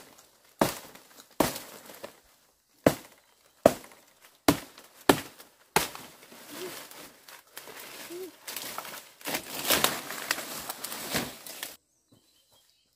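Chopping strokes of a blade hacking into branches and undergrowth, seven sharp blows over about six seconds, followed by dense crackling and rustling of dry leaves and brush being broken and pulled aside. The sound cuts off abruptly near the end.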